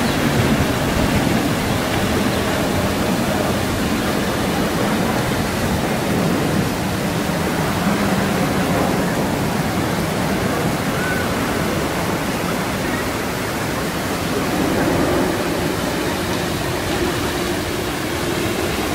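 Steady rush of water falling from the rock waterfalls of a hotel swimming pool.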